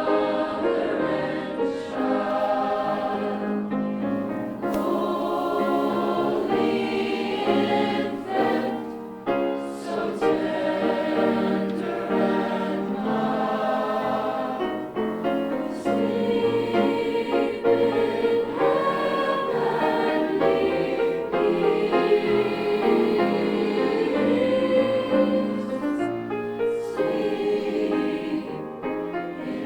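High school choir singing.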